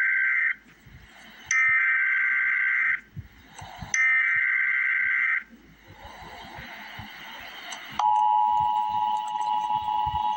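Emergency Alert System SAME header: three loud bursts of two-pitch digital data tone, each about a second and a half long with a short gap between. The first burst is already sounding at the start. After a pause of about two and a half seconds, the steady two-tone EAS attention signal starts and holds, the tone that warns listeners an alert message follows.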